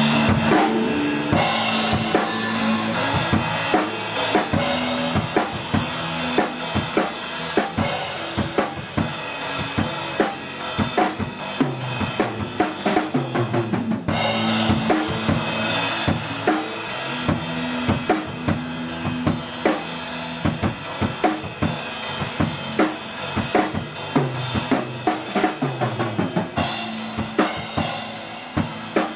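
Blues-rock band playing, the drum kit loudest with kick, snare and cymbals over a moving bass line. It comes in hard about a second in, again around the middle and again near the end.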